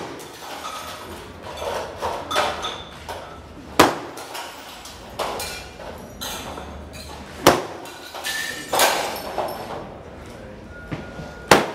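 Fluorescent light tubes smashed by hand one after another: three sharp glass cracks, about four seconds apart, the last the loudest, with shards tinkling and clinking in between.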